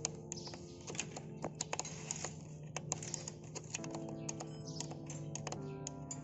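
Background music with irregular light clicking and tapping of a screwdriver on metal, as the spring-membrane adjuster of a Hino Dutro diesel injection pump's boost compensator is pried forward.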